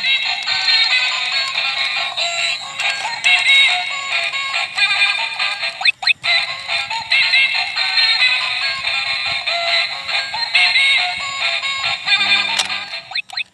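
Battery-operated toy turtle playing its tinny electronic children's song through a small built-in speaker.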